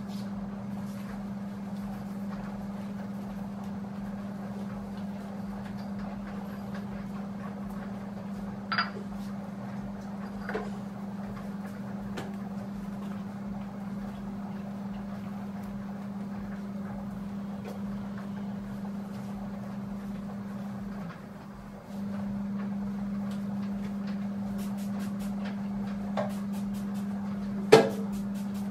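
A steady low hum with a few knocks and clicks of cleaning things being handled. The hum drops out for about a second roughly three quarters of the way through, and the loudest knock comes near the end.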